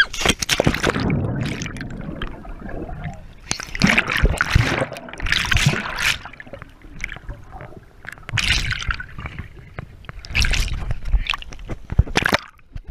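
Lake water splashing and gurgling around a camera plunged underwater, in uneven bursts of bubbling and sloshing, with the camera breaking the surface near the end.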